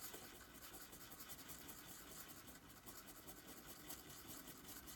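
Faint, continuous scraping of a metal-tipped dotting tool stirring a paste of gel polish and acrylic powder on a card palette.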